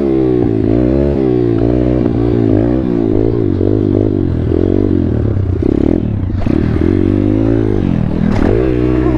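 Pit bike's single-cylinder four-stroke engine revving up and down again and again while being ridden, its pitch rising and falling about once a second.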